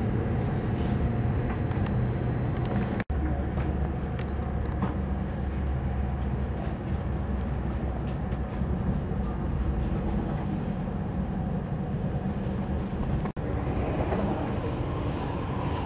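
Passenger train running at speed, heard from inside the carriage: a steady low rumble of the wheels on the track. The sound drops out for an instant twice, about three seconds in and near the end.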